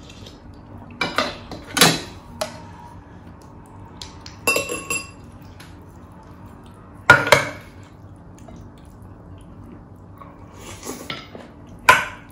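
Tableware clinking: a ceramic spoon and ladle knocking and scraping against a glass serving dish and plates, in four short clusters of clinks, the loudest about seven seconds in.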